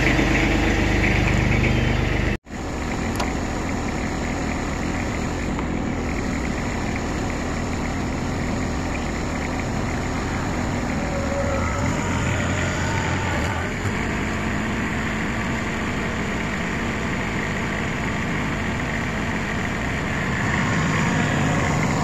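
Old Kubota compact tractor's diesel engine running steadily. There is a brief gap in the sound about two seconds in, and the engine runs a little louder near the end.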